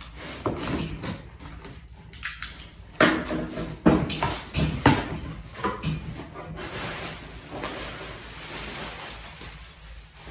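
Cardboard box and packing being opened and handled. There are irregular knocks and clicks, the loudest a few seconds in, followed by a steady rustling of packaging.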